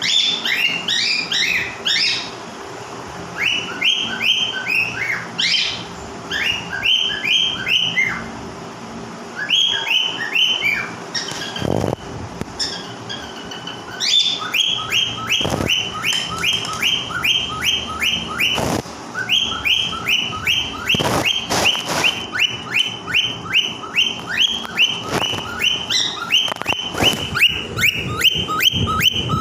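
A pet animal calling loudly in long runs of short, high-pitched chirping notes, several a second, with pauses between the runs and a few dull thumps among them.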